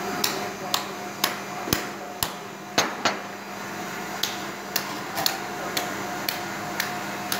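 Sharp knocks repeating about twice a second, over a steady hum.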